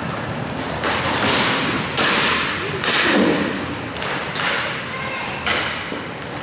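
Inline roller hockey play: about six sharp knocks of sticks and puck, one every second or so, each echoing in a large hall.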